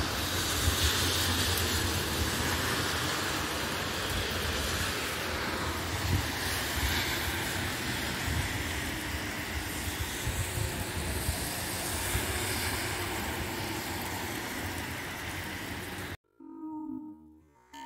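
Heavy rain falling: a steady, even hiss with a low, gusting rumble underneath. It cuts off suddenly about 16 seconds in.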